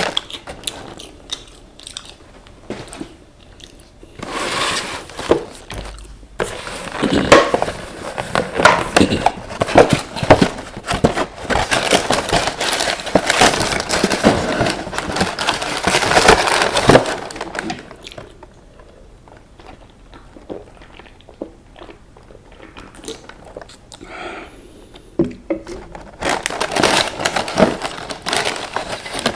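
Close-miked crunching and chewing of crispy KFC fried chicken: a long run of dense crackling bites, then a quieter stretch of chewing, then more crunching near the end.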